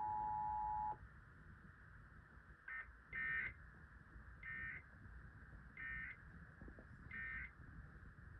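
Two-tone EAS attention signal held steady, cutting off about a second in. It is followed by a series of short electronic beeps, about one every second and a half.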